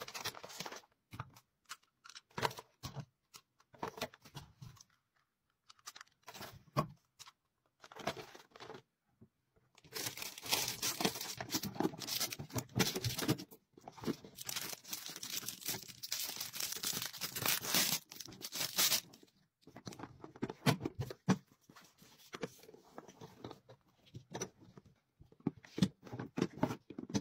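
Plastic wrapping and paper crinkling and rustling as items are handled and packed into a gift box by hand. It comes in irregular bursts, with a longer unbroken stretch about midway.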